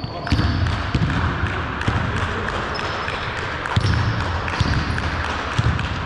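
Basketball bouncing on a hardwood gym floor during play in a large indoor sports hall, about six uneven thuds over a few seconds.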